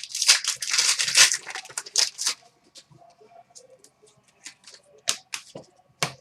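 Trading card pack wrapper crinkling and cards being handled and slid against each other, dense for the first couple of seconds, then a few light clicks and taps.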